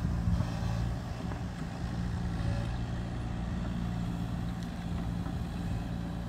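A mini excavator's diesel engine running at a steady speed while the machine works its digging arm: a low, even engine hum.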